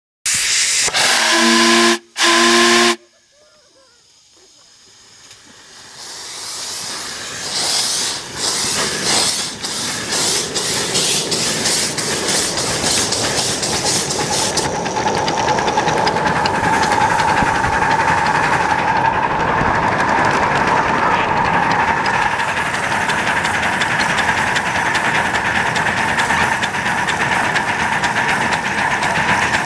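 Live-steam 2-8-2 Mikado locomotive sounding its steam whistle in two blasts, a long one then a short one, then setting off with exhaust chuffs that grow louder and give way to a steady hiss of steam.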